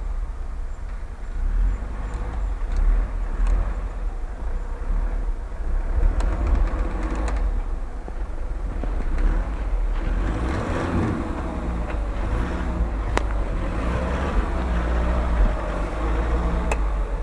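Engine of a lifted off-road 4x4 SUV labouring through deep snow, its revs rising and falling, pulling harder about two-thirds of the way through. A single sharp knock is heard about thirteen seconds in.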